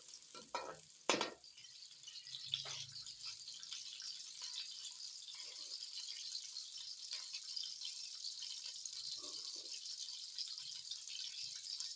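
Chopped onion sizzling in hot cooking oil in a pan as it lightly browns, a steady hiss, with a few clicks of a spoon against the pan, the loudest about a second in.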